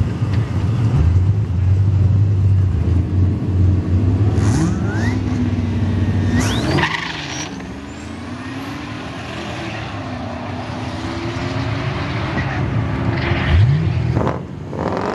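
Drag-racing V8 engines, from a turbocharged Ford Mustang GT and a Ford Lightning, rumbling and revving at the starting line. About seven seconds in the revs shoot up with a high rising whine as the cars launch, and the engine note then climbs through the gears as they pull away down the track. A sharp rise in revs comes near the end.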